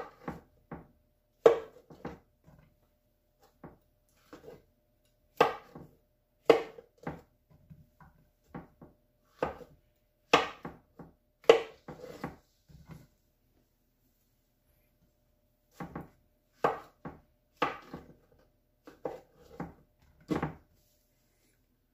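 Kitchen knife halving button mushrooms on a plastic cutting board: irregular sharp knocks as the blade strikes the board, with a pause of a few seconds around the middle.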